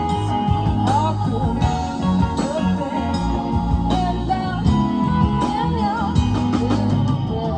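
Live rock band playing: electric guitars, keyboards, bass and drums, with a wavering lead melody line over a steady beat.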